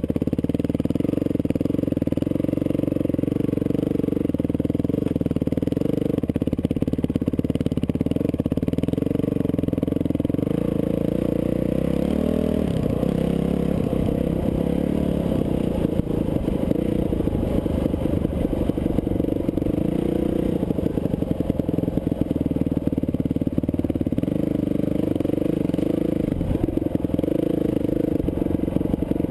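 Dirt bike engine running steadily under throttle while riding a trail, its note shifting as the rider works the throttle, with a noticeable change about twelve seconds in.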